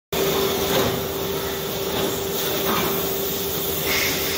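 Zinc die casting machine running on the factory floor: a steady mechanical hum under a wash of machine noise, with a few faint hisses.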